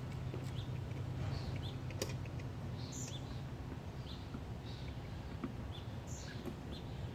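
Small bird chirping: short, high chirps about once a second over a steady low hum, with one sharp click about two seconds in.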